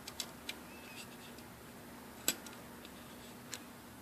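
Scattered light clicks and ticks of small metal hardware being handled as nuts are threaded and tightened onto a bracket screw in an aluminum extrusion. The sharpest click comes a little past the halfway point.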